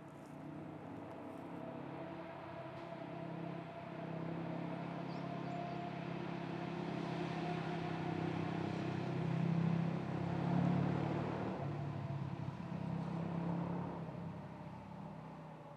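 A motor vehicle passing on the road, its engine growing louder to a peak about ten seconds in, then fading away.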